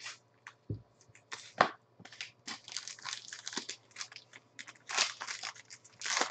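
A foil trading-card pack wrapper crinkling and tearing as it is pulled open by hand, in an irregular run of short crackles. A clear plastic card sleeve rustles briefly at the start.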